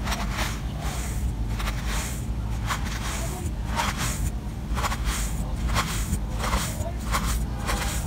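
Knife slicing through a block of kinetic sand on a wooden board: a run of short, crisp crunching cuts, about two a second.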